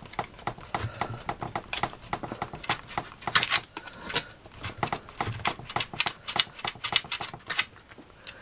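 Craft knife blade cutting and scraping through expanded polystyrene foam, an irregular run of sharp crunchy clicks several times a second with an occasional brief squeak.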